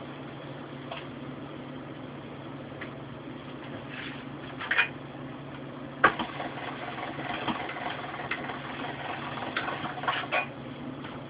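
Hand-cranked pasta machine rolling a sheet of dough: a sharp knock about six seconds in, then the rollers and gears rattle and click for several seconds as the handle is turned. A steady low hum runs underneath.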